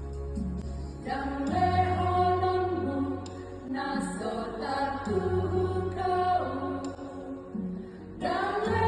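Church women's choir singing in sustained, harmonised phrases, a new phrase swelling in about a second in and another near the end.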